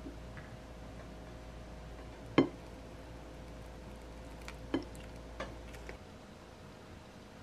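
A few light clicks of tableware against a ceramic plate, the sharpest about two and a half seconds in and another near five seconds, over a steady hum that stops about six seconds in.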